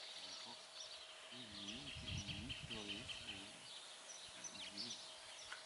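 Small birds chirping and twittering in the background. A faint low voice murmurs for a moment in the middle, over a faint steady hum.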